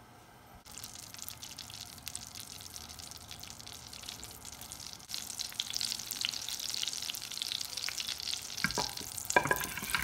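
Melted butter sizzling and crackling in a stainless steel saute pan as it foams, its water boiling off before the milk solids brown; the crackle starts abruptly under a second in and grows louder about halfway. A few knocks near the end.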